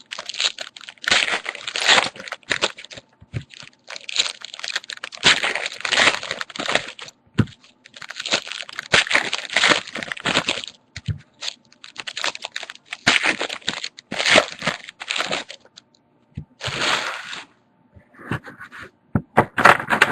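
Trading card packs being torn open and their wrappers crinkled, in a long series of rustling bursts with short pauses between them.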